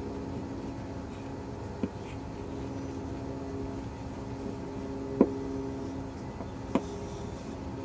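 A steady machine hum, with three sharp clicks, the loudest about five seconds in.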